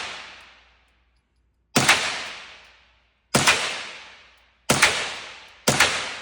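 Four single .22 LR gunshots from CCI Stinger rounds, fired at a steady pace, each sharp crack trailing off in a long echo; the shots come about a second and a half apart, then closer to one second apart near the end.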